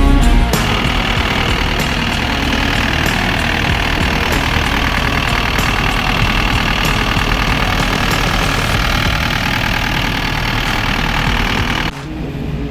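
Diesel engine of a SANY SY60C crawler excavator running steadily, dropping away sharply near the end.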